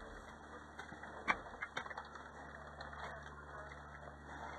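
Quiet movement noise from players walking in kit, with one sharp click about a second in and a few lighter ticks just after it.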